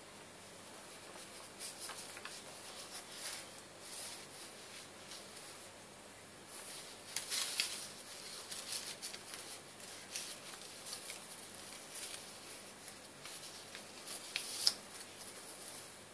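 Paper rustling and sliding as a cut-paper labyrinth wheel is handled and turned against a paper page: irregular short scrapes and rustles, with one sharper tap near the end.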